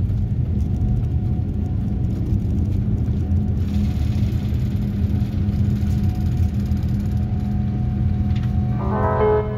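Boeing 787-9 cabin during the takeoff roll: a loud, steady low rumble of the GEnx engines at takeoff power and the wheels on the runway, with a rushing hiss of air joining a few seconds in. Piano music comes in near the end.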